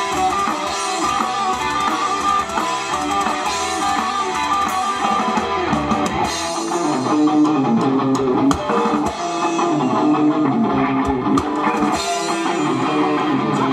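Live rock band playing, with electric guitars over a drum kit and bass.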